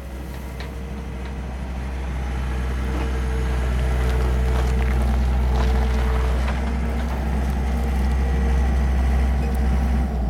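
Skid steer loader's engine running steadily, growing louder as the loader drives closer.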